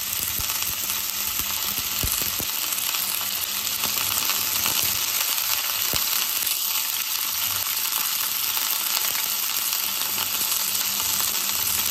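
Raw boneless chicken cubes sizzling steadily in two to three spoonfuls of hot oil in a frying pan, the meat still pale at the start of frying, with a few faint ticks.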